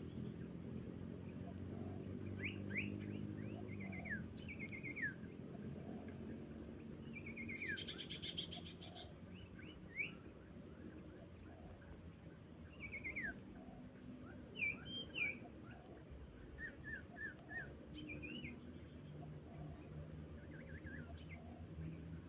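Small songbirds calling: scattered short, high chirps and quick falling trills, a second or a few seconds apart, over a low steady hum.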